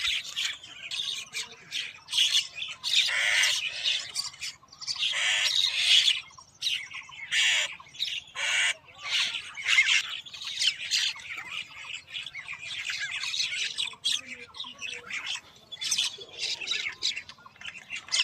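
Common mynas calling: harsh squawking calls, one after another with short breaks.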